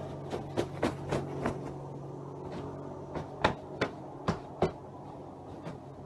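A series of sharp knocks, about four in quick succession in the first second and a half, then about four more a little under half a second apart from about three seconds in.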